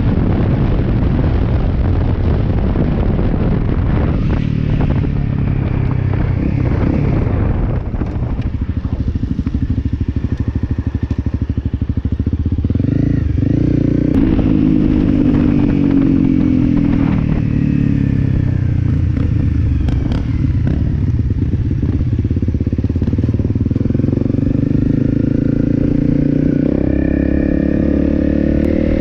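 Honda CRF250L single-cylinder dual-sport motorcycle engine running while riding, with heavy wind noise on the microphone at speed at first. About halfway through the engine slows, and its pitch falls and rises through the gear changes. It then runs steadily again.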